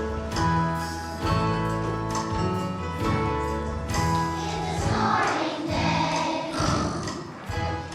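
Song from a children's musical: instrumental accompaniment with held chords, then a children's choir comes in singing about five seconds in.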